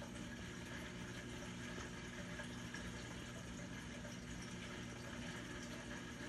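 Steady rushing background noise with a faint low hum, unchanging throughout; no barks, yelps or other distinct sounds from the playing puppies.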